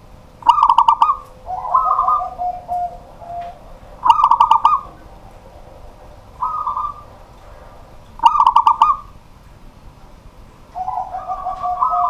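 Zebra dove (perkutut) singing: repeated cooing phrases about every four seconds, each a fast, stuttering run of notes followed by lower, drawn-out coos that slide down.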